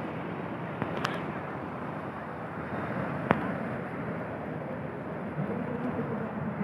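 Ocean surf breaking on a beach: a steady rushing wash of waves, broken by two sharp knocks about a second in and about three seconds in. A low droning tone comes in near the end.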